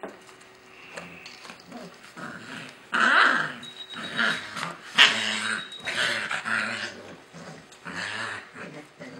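A puppy grumbling and growling in a run of short, wavering calls while it is held and handled, starting loud about three seconds in; it is tense and protesting.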